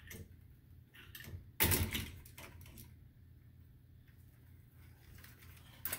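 Screwdriver work on a Honeywell zone valve's motor head: small clicks and scrapes of the tool and metal parts, with a louder clatter about a second and a half in, over a low steady hum.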